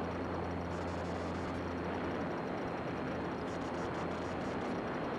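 Cessna 182 Skylane's piston engine and propeller droning steadily in flight, with rushing air noise and a low, even hum.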